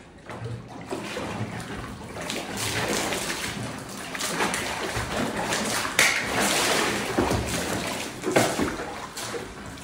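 Water sloshing and splashing as a swimmer in a mermaid tail goes under and the tail flips about, with a sharper splash about six seconds in and another a couple of seconds later.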